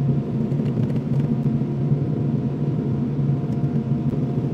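Kobelco SK75SR excavator's diesel engine running steadily, a low, even drone.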